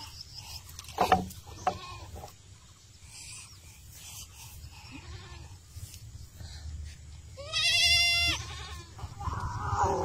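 One long, wavering animal call, a bleat, about seven and a half seconds in. Before it, a couple of sharp knocks about a second in.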